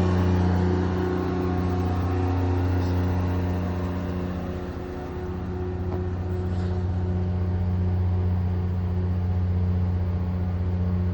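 Diesel engine of a fire department tower ladder truck running with a steady low drone that dips slightly about five seconds in.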